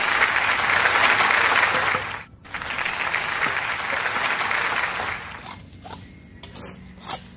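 Applause, in two stretches of about two and a half seconds each with a brief break between, fading out about five seconds in; after it, a few light scrapes and taps of a trowel on the soil and cement bricks.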